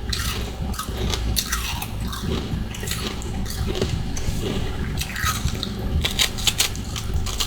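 Humidifier freezer frost and ice chunks being bitten and chewed close to the microphone: irregular crisp crunches and crackles, with a quick run of crunches about six seconds in.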